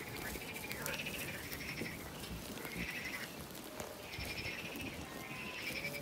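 A flock of sheep bleating, short calls about once a second, over scattered crisp clicks of grass being cropped as they graze.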